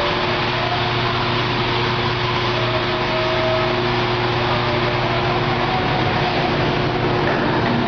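Semi-automatic water-jug washing machine running: a steady electric pump hum with an even rushing hiss that holds level throughout.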